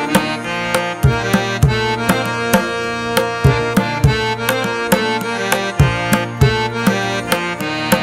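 Band music: accordion and acoustic guitar over a steady drum beat.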